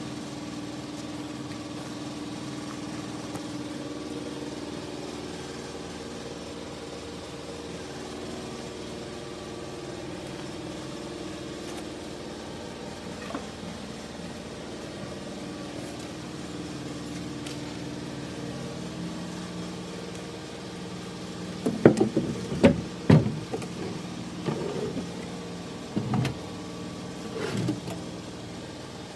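A steady machine hum, then, in the last third, a run of loud knocks and short sliding rattles: wooden drawers of a cypress chest are being pulled out and pushed shut on three-section metal damper drawer slides. The loudest knocks come close together just after the sliding starts.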